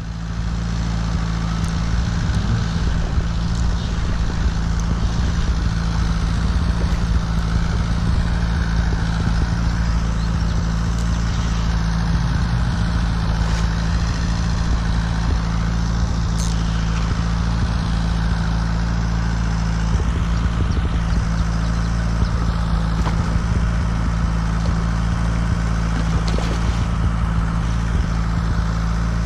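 A fish pond's paddlewheel aerator running with a steady, unchanging low motor hum.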